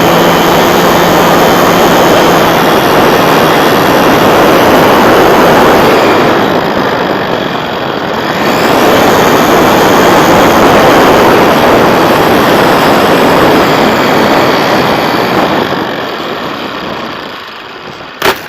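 Loud, steady wind rush and propeller noise from a camera riding on an RC Piper Super Cub in flight, dipping about eight seconds in and fading from about fifteen seconds. Near the end a sharp crack as the plane strikes something, after which the noise cuts off.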